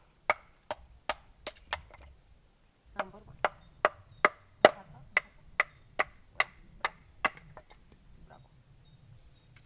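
Rapid chopping blows of a hand tool into wood, about two to three a second: six strikes, a short pause, then about eleven more.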